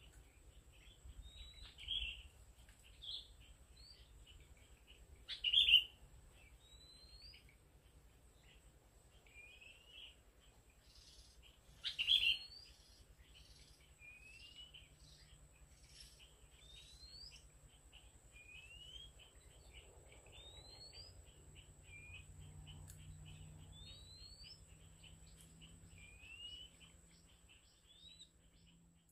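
Oriental magpie-robin calling: short rising whistles every second or two, with louder calls about 2, 6 and 12 seconds in and fast chattering notes in between. A thin steady high tone runs underneath.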